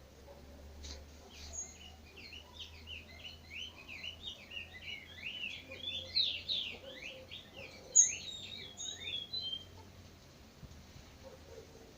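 Songbird singing a long, rapid warbling phrase of quick chirped notes, with a sharp high note about two-thirds of the way through.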